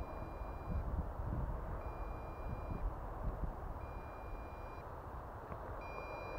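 Electronic warning beeper sounding a roughly one-second beep every two seconds, over low wind rumble on the microphone. It is the low-battery alarm of the drone outfit after the quadcopter's battery ran flat.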